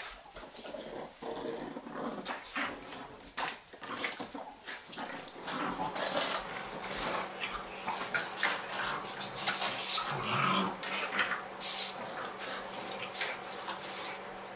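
Boston Terriers playing rough, noisy tug-of-war over a toy alligator, with dog play sounds and many short sharp noises, getting busier from about a third of the way in.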